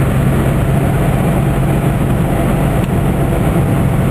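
Steady in-cabin driving noise of a 1997 Geo Metro, engine running and tyres on a wet road, with no change in pitch or level.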